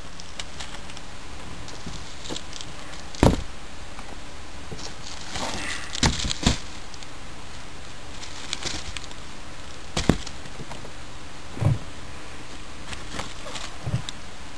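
Fireworks packages being handled and set down on a hard surface: six separate knocks spaced a few seconds apart, with a brief rustle of packaging just before the middle pair.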